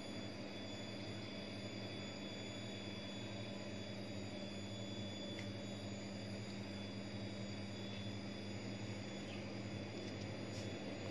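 Steady electrical hum of a chest freezer running, a low drone with faint high whining tones over it.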